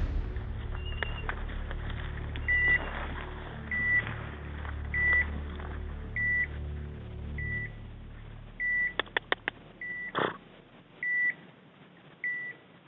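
A hunting dog's beeper collar sounding a short high beep about every 1.2 seconds. It is the locator signal that tracks a setter out of sight in thick cover. A few quick clicks come around nine seconds in, with a single knock just after.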